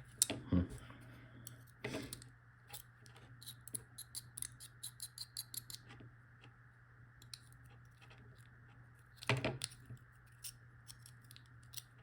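Small metal parts of an Abloy padlock clicking and tapping as they are worked at by hand to get them out, which does not free them. A quick run of light clicks in the middle and a louder clatter about nine seconds in, over a steady low hum.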